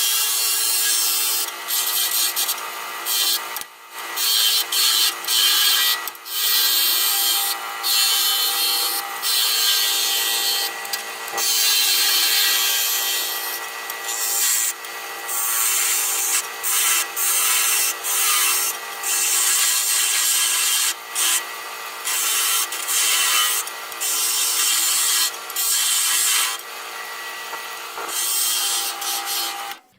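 Wood lathe running with a steady motor hum while a chisel cuts into the spinning wooden blank, the cutting noise coming in repeated short and longer passes. Everything cuts off suddenly at the end.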